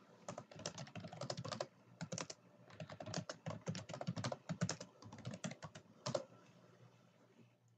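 Computer keyboard typing in quick bursts of keystrokes with short pauses between them. The typing stops a little after six seconds in.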